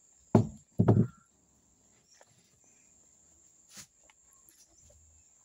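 Two loud, muffled thumps about half a second apart, followed by a faint steady high-pitched whine with a few small ticks.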